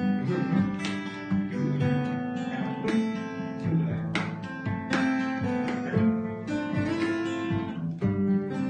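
Acoustic guitar playing chords, strummed in an even rhythm with moving bass notes.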